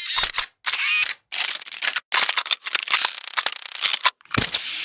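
Designed gadget sound effects: a quick run of mechanical clicks, ratchets and short whirs, cut apart by brief silences, with a warbling electronic whir about a second in.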